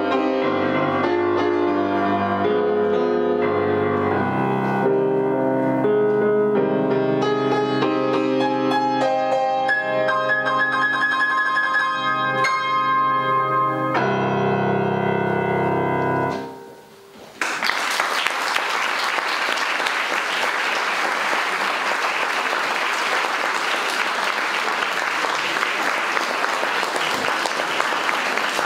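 Grand piano played, the piece ending on a held chord a little over halfway through. After a brief pause, an audience applauds steadily.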